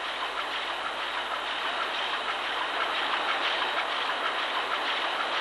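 Steady mechanical clatter and hiss of a large two-stroke crosshead marine diesel engine running, with faint even ticking through it.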